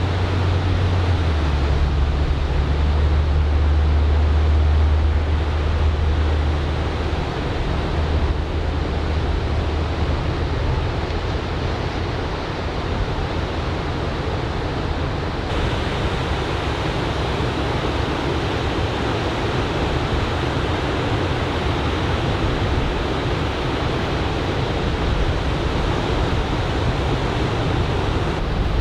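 Ocean surf from a typhoon swell breaking on a sandy beach: a steady wash of waves. A low steady hum lies under it for the first several seconds and fades out by about twelve seconds in.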